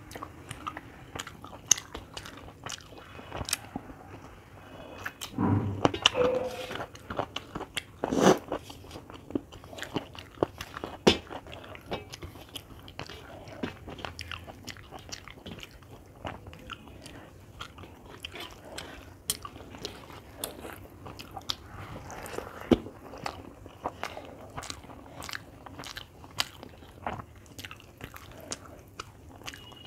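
A person eating by hand: chewing and biting with frequent sharp clicks and smacks, mixed with fingers working rice and chicken against a steel plate.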